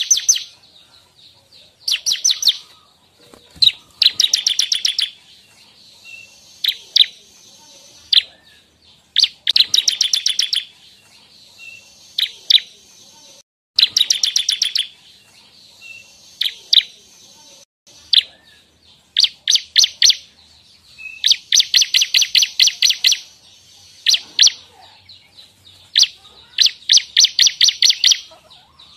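Ciblek (bar-winged prinia) singing: repeated bursts of rapid, high, dry ticking notes, about ten a second. Each burst lasts half a second to nearly two seconds and comes every second or two, with single sharp chips in between.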